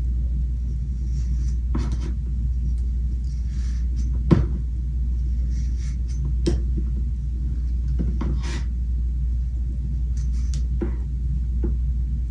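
A steady low rumble runs throughout, with scattered light knocks and clicks from objects being handled. The sharpest knock comes about four seconds in.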